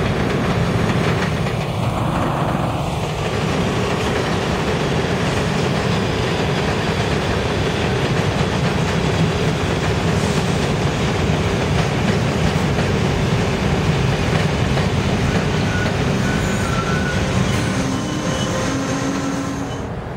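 An R62A subway train on the 1 line passes close by on elevated track, with a steady loud rumble of wheels on rail. A few brief faint wheel squeals come near the end.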